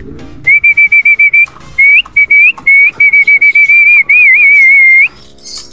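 Loud whistling to call a homing pigeon down off the loft roof into the trap: a run of short, trilled high whistles, then longer warbling ones with quick upward flicks at their ends. It stops about five seconds in.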